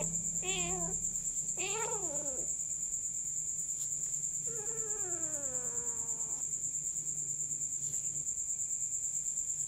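Kitten meowing three times: a short meow, a second that rises and falls, then a longer meow that slides down in pitch. Behind it, a steady high chirring of crickets.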